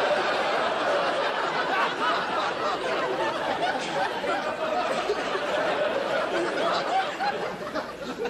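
Studio audience laughing, a long sustained laugh from many people that thins out near the end.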